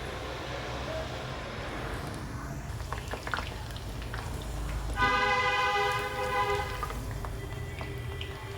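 Vegetable pakodas sizzling in hot oil as they deep-fry. About halfway through, a vehicle horn sounds once for about two seconds, louder than the frying.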